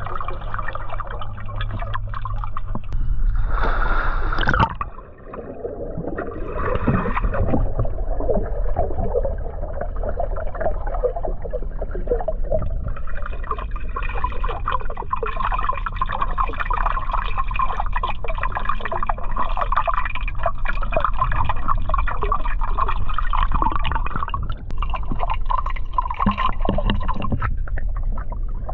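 Water heard underwater: continuous gurgling and bubbling over a low rumble. It drops away briefly about five seconds in, then returns.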